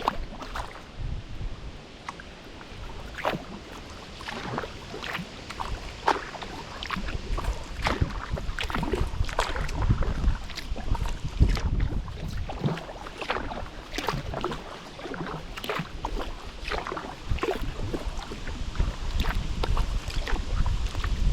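Kayak paddle strokes: the blades dip and splash in the water in a steady rhythm, about one stroke a second, over a low rumble.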